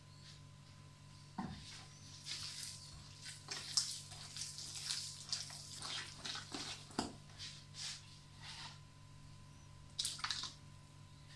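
A hand mixing a wet paste of ground poppy seeds and oil in an earthenware bowl, making a run of irregular wet smacks and splashes, with another short burst near the end. A faint steady hum runs underneath.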